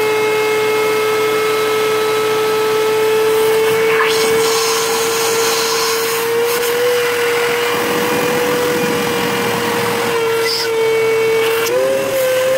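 Shop vac running with a steady whine, its hose drawing coolant out of a snowmobile's coolant hose. Rushing noise swells about four seconds in and again mid-way, and the whine's pitch wavers slightly as the load changes.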